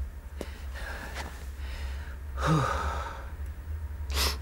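A man's breathy sigh with a short murmur that falls in pitch about halfway through, then a sharp exhale through pursed lips near the end, over a steady low hum.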